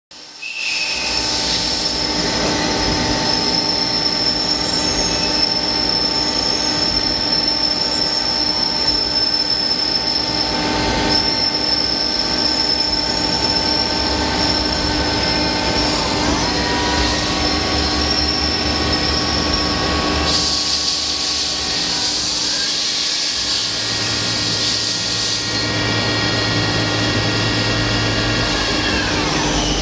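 GT2100 CNC lathe running a machining cycle: a steady high-pitched metallic whine with several held tones. The tones glide upward twice as the spindle speeds up, once around the middle and again a few seconds later, then slide down near the end as it slows, with a stretch of hissing noise in the latter half.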